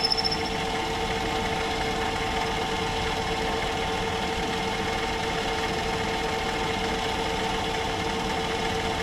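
Myford metal lathe running steadily at speed with an even hum, taking a repeat light cut across a pulley to clean up a rough finish.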